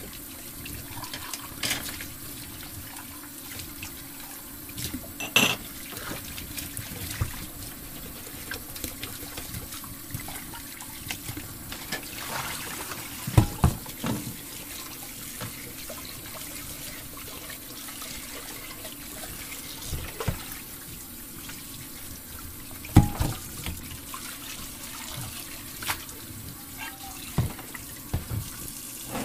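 Small plastic toy-kitchen pieces clicking and tapping as they are handled and hung on the toy's hooks: a scatter of sharp clicks, loudest twice, over a steady background hiss.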